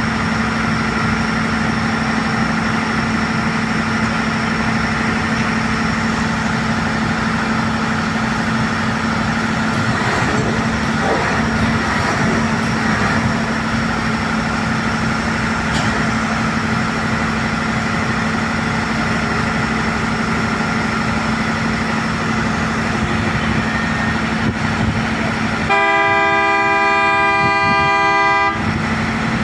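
Track-laying machine's engine running steadily, then a horn sounds once for about three seconds near the end, louder than the engine.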